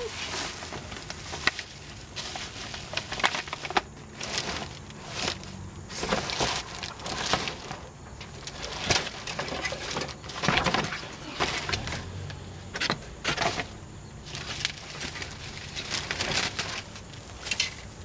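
Plastic garbage bags rustling and crinkling in irregular bursts as they are pulled and shifted by hand in a dumpster.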